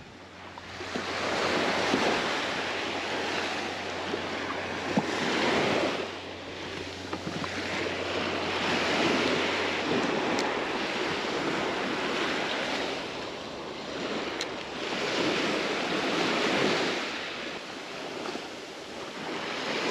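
Small surf washing onto the beach, each wave swelling and fading over a few seconds, with some wind on the microphone.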